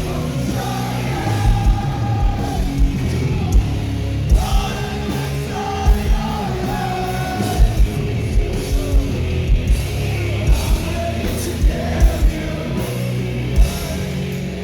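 Live post-hardcore rock band playing at full volume, with sung and partly yelled vocals held over the band and hard low drum beats throughout.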